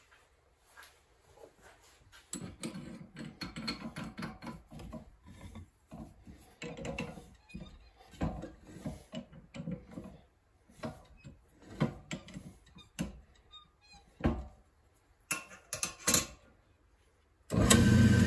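Metal clicks and knocks of a drill bit being fitted and tightened in a drill press chuck. Near the end, the drill press motor switches on suddenly and runs loudly.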